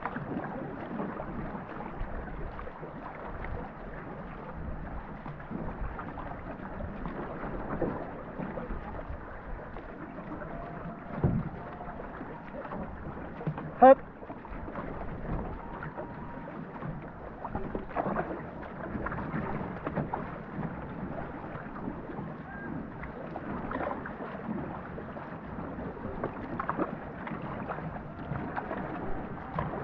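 Paddling a racing canoe: paddle strokes in the water and water washing along the hull as a steady rushing sound, with one brief sharp sound about 14 seconds in.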